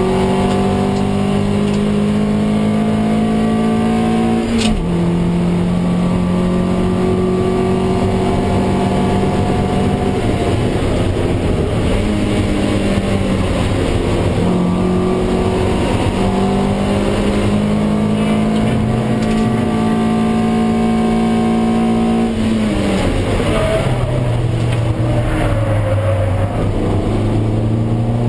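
Toyota MR2 Roadster race car's 1.8-litre four-cylinder engine, heard from inside the cabin, pulling hard under full throttle. The engine note climbs steadily and drops sharply about five seconds in at an upshift, then climbs again for a long stretch. About 23 seconds in it falls away as the car brakes for a corner, then rises again near the end.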